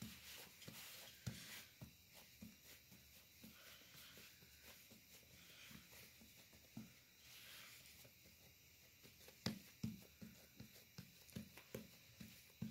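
Faint soft pats of fingers pressing pizza dough out in a floured metal pizza tray. In the last few seconds the pats come quicker and more regular, about three a second.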